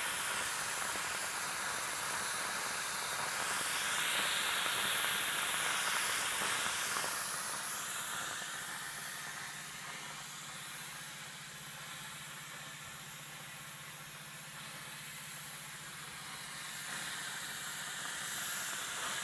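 Upright garment steamer hissing steadily as steam jets from its nozzle, louder for the first several seconds and easing off after about eight seconds, with a low hum under it through the middle.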